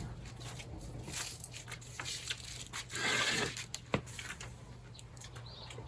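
Light clicks and a brief crunchy rustle about three seconds in: small sounds of people eating at a table.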